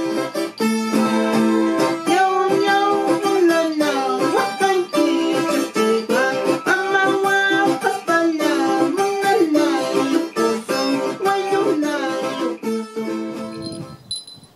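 A small Andean string instrument with paired strings played by hand: a lively run of plucked and strummed notes, stopping shortly before the end.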